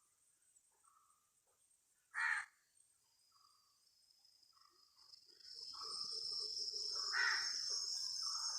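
A single short crow-like caw about two seconds in, over faint scattered calls. From about five seconds in a steady high insect drone builds and holds, with another call near the seven-second mark.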